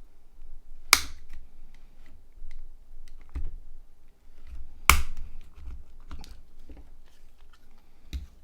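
Plastic clicks and taps from a Nokia 6151 phone's casing and parts being handled and pried apart, with two sharp snaps about one and five seconds in.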